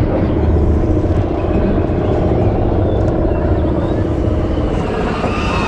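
Roller coaster train running along its steel track, heard from on board: a steady low rumble with wind buffeting the microphone.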